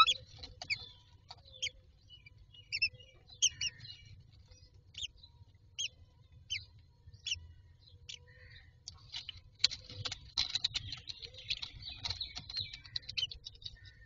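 Newly hatched common myna chicks giving short, high begging peeps, a few at a time, then a rapid flurry of peeps and clicks about ten seconds in as the adult feeds them. It opens with one loud rising call.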